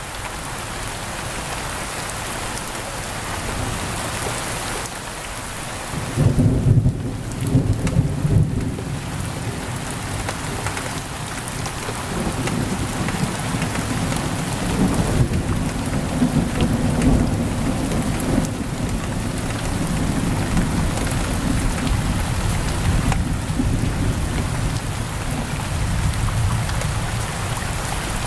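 Heavy rain pouring steadily on a window. Thunder rumbles in suddenly about six seconds in and keeps rolling low through the rest.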